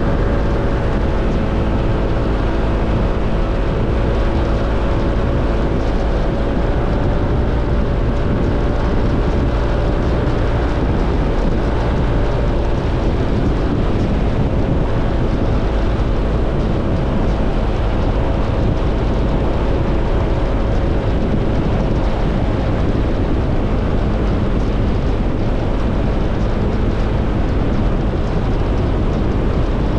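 Motorcycle running steadily on the move, its low engine rumble mixed with wind and road noise.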